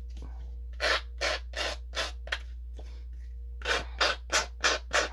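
A file rubbed back and forth along the edge of a paper card to smooth it: about four strokes, a pause of over a second, then a quicker run of strokes near the end.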